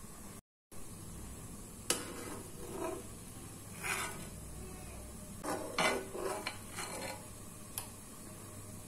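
Metal ladle clinking and scraping against a stone-coated pan while skimming foam off the water that the chicken meatballs cook in. It makes scattered knocks and short scrapes, most of them bunched a little past the middle. The sound cuts out completely for a moment just after the start.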